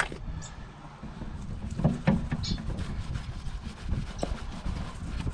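Gloved hands rubbing and handling a steel exhaust pipe while cleaning sealant off a clamped joint, with a few light knocks about two seconds and four seconds in, over a low steady rumble.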